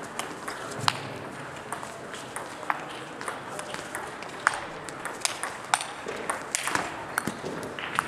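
Table tennis rally: the ball clicking off the players' bats and bouncing on the table, sharp pings coming in a quick, irregular sequence.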